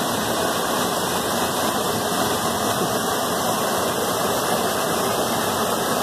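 Steady rushing of a waterfall and its stream running over rocks, an even, unbroken wash of water noise.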